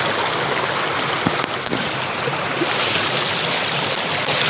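Small waterfall: steady rush of falling water.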